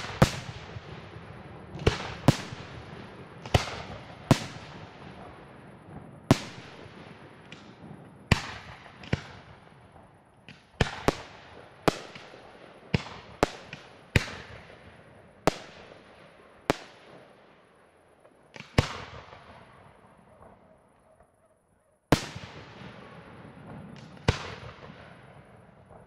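Aerial firework shells bursting, a sharp bang every second or so, each dying away in a long fading echo. About three quarters of the way through there is a short lull, then the bangs start again.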